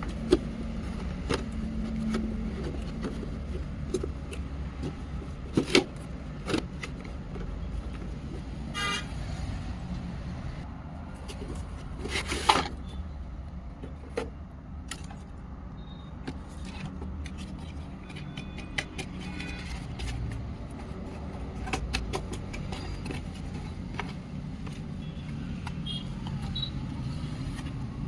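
Cardboard toy-box packaging being handled, slid and turned over, with scattered clicks and knocks, the sharpest two about six and twelve seconds in, over a steady low hum.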